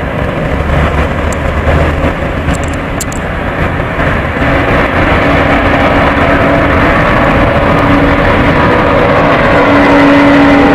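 The six Ivchenko-Progress D-18T turbofan engines of an Antonov An-225 Mriya at takeoff power during its takeoff roll: a loud, steady jet roar that grows louder about four seconds in, with a steady hum rising out of it.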